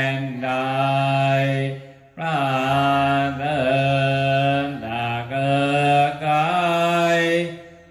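Buddhist chanting: voices intoning on a near-steady pitch with long held syllables, pausing briefly for breath about two seconds in and again near the end.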